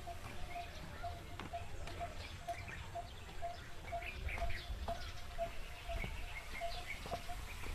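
Birds calling in trees: a short note repeated about twice a second, with higher chirps scattered over it and a low rumble beneath.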